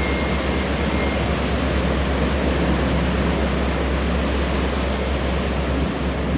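Steady rushing noise with a deep, constant rumble from a high-speed catamaran ferry's engines and waterjets churning the harbour water; the rumble dips briefly near the end.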